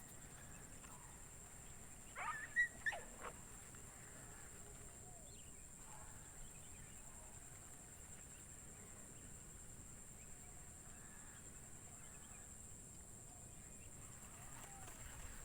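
Short animal cries, several quick rising-and-falling calls about two seconds in and fainter ones later, over a faint steady high-pitched hiss.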